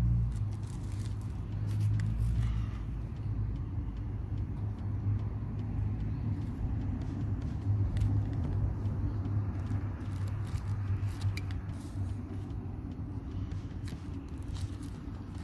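Steady low rumble with scattered small clicks and taps as wire connectors are worked off the terminals of the old 12 V ATV batteries.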